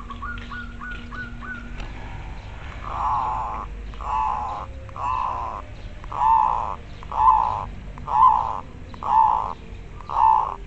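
Zebra dove (perkutut) singing: a quick run of about six short rising notes, then eight loud cooing notes about a second apart.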